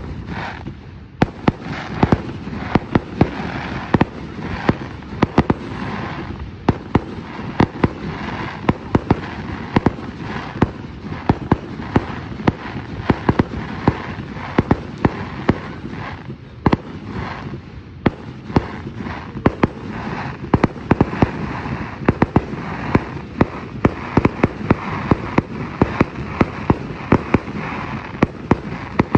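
Fireworks going off in a dense, continuous string of sharp pops and crackles that begins abruptly and never lets up.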